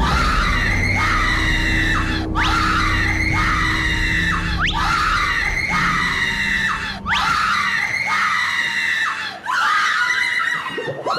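A woman screaming in fright: about five long, high screams one after another, each starting with a quick upward sweep and lasting about two seconds.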